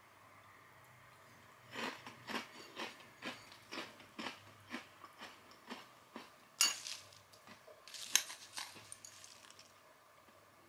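Close-up chewing of a crunchy spiced cornflake snack mix, about two crunches a second for several seconds. This is followed by a metal spoon clinking and scraping against a ceramic bowl twice as the next spoonful of flakes is scooped.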